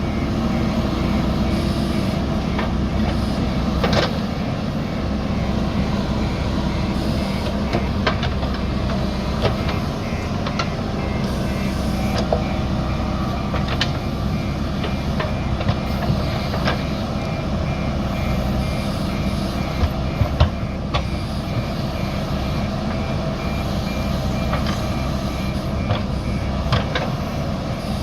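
JCB backhoe loader's diesel engine working under load, with its reversing alarm beeping repeatedly at a steady high pitch. Occasional sharp knocks punctuate the engine sound.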